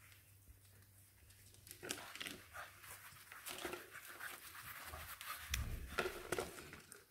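English bulldog puppies rummaging in and chewing a plastic basket: irregular clicks and rattles of plastic, with the puppies breathing noisily. There is a dull bump a little before the end.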